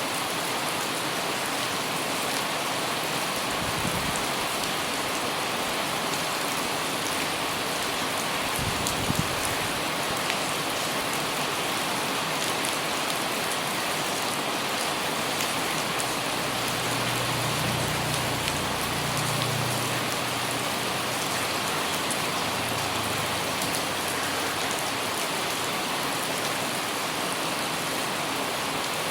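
Light rain pattering steadily on an umbrella canopy, with many single drops ticking on the fabric.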